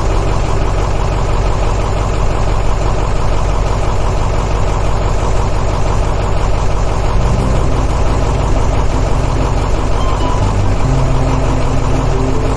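A motor or engine running steadily at a constant speed, with a dense, even buzz, and a few short musical notes over it.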